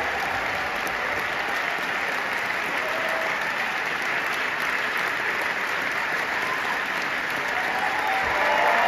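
Large theatre audience applauding steadily during an opera curtain call, growing louder near the end.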